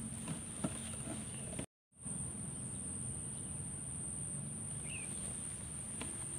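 Insects trilling in one steady, high-pitched note over a low background rumble, with a few small clicks near the start. The sound cuts out completely for a moment about two seconds in.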